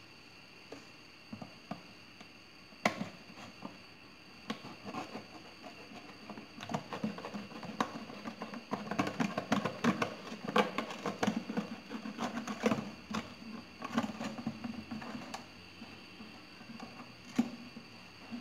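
Knife blade cutting through the wall of a thin plastic bottle. The plastic crackles and clicks in irregular bursts, busiest in the middle.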